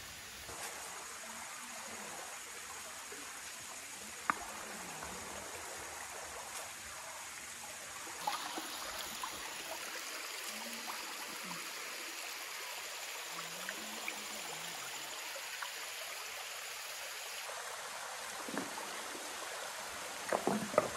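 Small waterfall and its stream running steadily over rock, a continuous rushing and trickling of water. Near the end come a few louder splashes and knocks as bare feet step through the shallow water.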